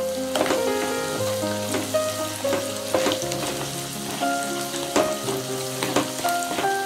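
Chopped onion and green chilli sizzling as they fry in hot oil in a non-stick wok, stirred with a wooden spatula that knocks against the pan a few times. Background music plays underneath.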